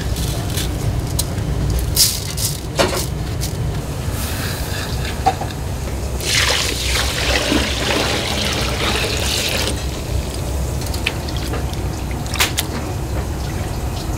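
Water poured from a pot onto rice in a mesh-lined basket, splashing through the grains for about three and a half seconds starting some six seconds in, as the rice is rinsed. A few sharp knocks come earlier and later, over a steady low hum.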